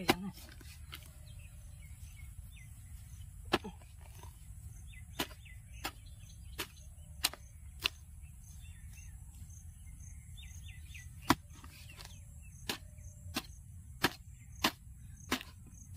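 Hand hoe chopping into stiff clay soil under dry stubble, a run of short dull strikes that become regular, about one and a half a second, from about five seconds in. Birds chirp faintly now and then.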